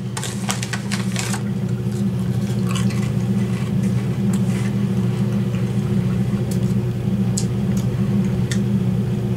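A steady low hum throughout, with crisp crunches of a potato chip being chewed in the first second or so and a few faint clicks later.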